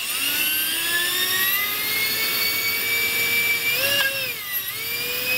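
Five-blade electric ducted fan on its stock 3200 kV outrunner brushless motor spinning up to a high whine with several overtones, run as a dynamic-balancing test. The pitch dips briefly near four seconds and then climbs back.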